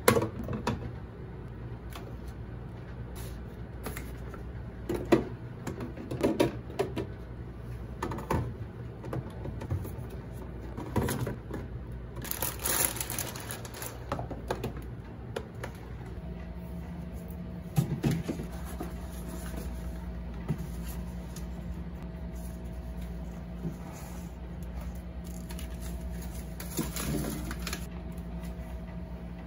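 Clicks, knocks and clatter of cans, plastic bottles and pouches being set into a refrigerator's door shelves and moved around its plastic compartments, with a rustle of plastic packaging partway through. A steady low hum comes on about halfway through.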